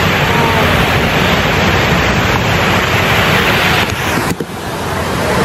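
Steady, loud rush of water spray and mist from the fountain around the Universal globe. The noise dips briefly about four seconds in and then builds back.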